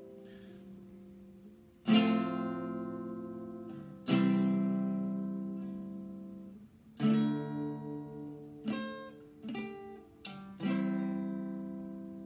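Archtop acoustic guitar strummed one chord at a time, each chord left to ring and slowly fade. Three long chords come about two seconds apart, then a quicker run of short strums, then a last chord rings out near the end.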